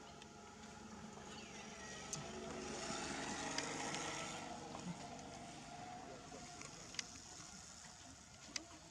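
A motor vehicle passing by: its engine drone swells to a peak about three to four seconds in and then fades away. A few sharp clicks sound over it.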